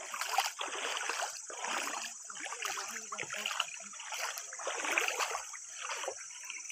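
Water splashing and sloshing close by, in irregular surges.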